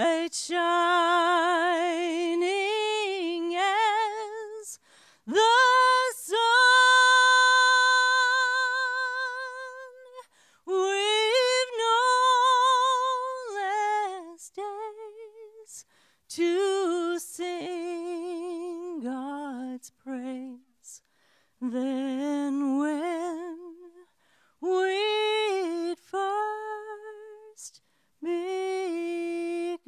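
A woman singing solo and unaccompanied into a microphone, in phrases broken by short pauses, holding long notes with a wavering vibrato.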